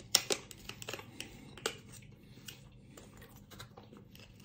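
Scattered small clicks and crinkles of a thin plastic dip pot being squeezed and handled over a cardboard pizza box, with a few louder clicks in the first two seconds and fainter ones after.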